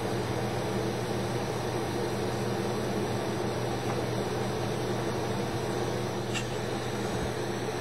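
Lampworking torch flame hissing steadily over a constant low hum, with one small click about six seconds in.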